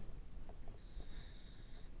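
A diver's inhalation through a scuba regulator: a faint hissing whistle lasting about a second, over a low muffled rumble.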